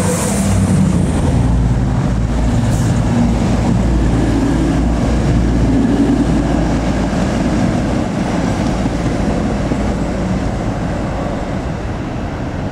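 Class 222 Meridian diesel multiple unit passing close by at speed: a steady engine drone and the rumble of wheels on the rails, easing slightly in the second half.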